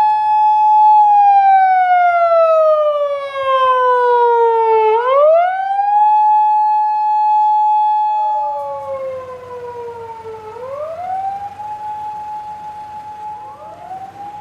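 Emergency vehicle sirens wailing in overlapping cycles. Each holds a high note, falls slowly for about four seconds, then climbs quickly back and holds again. About nine seconds in the sirens grow fainter and a low engine and road rumble comes up beneath them.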